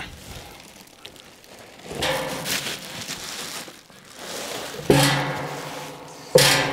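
Stainless steel fire pit set down on a wooden table, with its plastic wrap rustling as it is pulled off. Two sharp knocks about a second and a half apart, near the end, leave the steel drum ringing.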